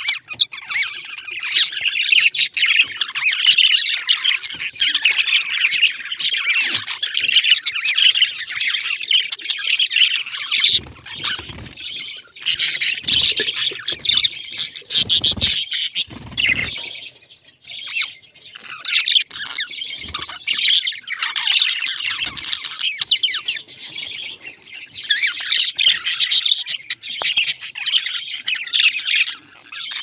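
A flock of budgerigars chattering and warbling: dense, continuous chirps and squawks. It thins out in the middle with a few low thumps, then builds again.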